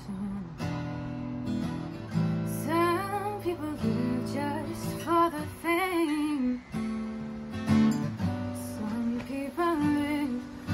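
A woman singing while playing an acoustic guitar, her voice coming in short phrases with wavering held notes over the guitar's chords.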